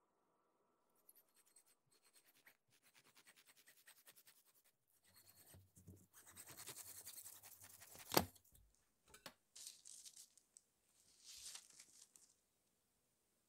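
A long knife sawing horizontally through a soft red velvet sponge cake: a soft, scratchy rasp of quick strokes, growing denser toward the middle, with one sharp click a little past the middle and a few last scratchy strokes near the end.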